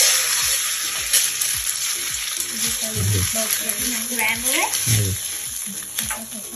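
Egg sizzling in hot oil in a nonstick wok while it is stirred and broken up with a spatula, with a steady hiss and a few light taps and scrapes of the spatula against the pan.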